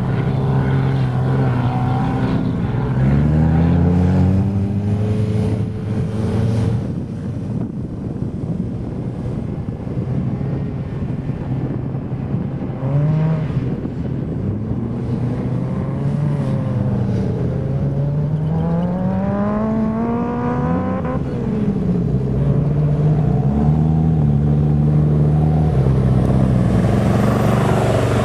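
Sand rail dune buggy engine revving up and falling back again and again as it climbs and turns on the sand. It gets louder over the last few seconds as a buggy drives close by.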